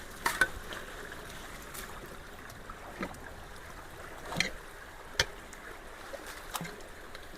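Floodwater running steadily through a debris-clogged culvert, broken by a few sharp knocks as the wedged debris is worked loose.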